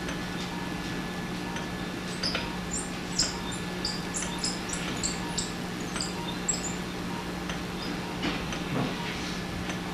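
Steady low hum, with a run of short high crackles and chirps from about two to seven seconds in, typical of an arthroscopic radiofrequency ablation wand cutting the biceps tendon free at its base.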